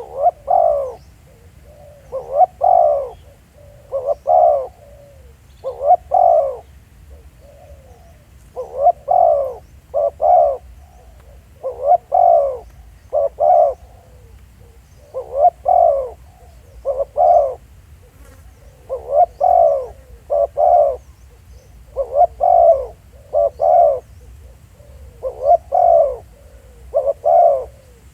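Spotted dove cooing over and over at close range: a regular series of roughly one-second, two- or three-note coos, one every one and a half to two seconds, the calling of a decoy dove used to lure wild doves.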